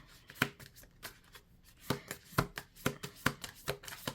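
Tarot deck being shuffled by hand: sharp slaps of cards against each other, one about half a second in and then a steady run of about two a second in the second half.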